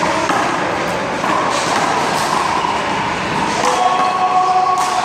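Busy ambience at an outdoor one-wall handball court: background voices, a few sharp slaps of the ball, and a steady humming tone that comes in about a second in and grows stronger past the middle.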